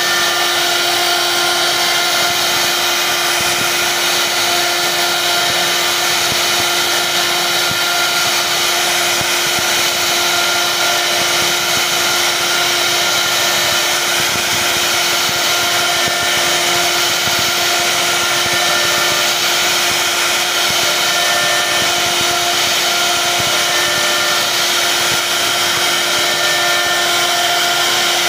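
CNC router spindle running at constant speed as its bit carves a floral relief into wood: a steady whine over a constant hiss.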